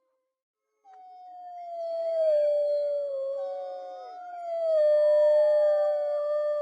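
Several wolves howling together: long, drawn-out howls overlapping at different pitches, beginning about a second in and swelling twice. The last howl drops off in pitch at the end.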